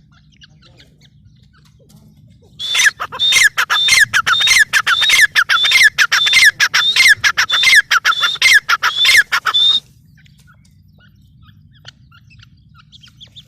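Grey francolin calling: a loud run of repeated notes, each falling sharply in pitch, two to three a second, starting about three seconds in and stopping abruptly after about seven seconds.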